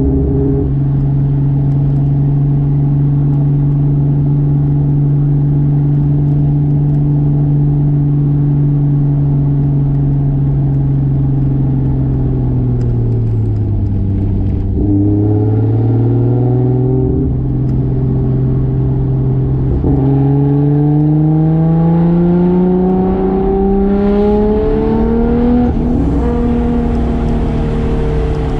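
Single-turbo 2JZ straight-six of a 1995 Toyota Soarer running at a steady cruise, dropping in pitch about halfway through as the throttle is lifted, then pulling again with the revs climbing steadily near the end before levelling off.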